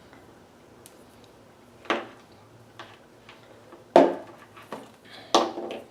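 Knocks and clatters of an aquarium air pump and its power cord being handled, about six separate hits with quiet between them, the loudest about two and four seconds in.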